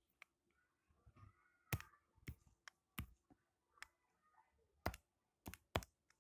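Stylus tapping on a tablet touchscreen: a handful of sharp, irregularly spaced clicks.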